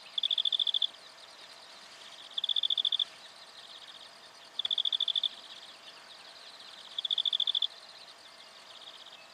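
A high-pitched pulsed trill from a calling animal, about two-thirds of a second long, repeated four times at an even pace of roughly one every two and a half seconds, each followed by a fainter answering trill. A faint steady high chirring runs underneath.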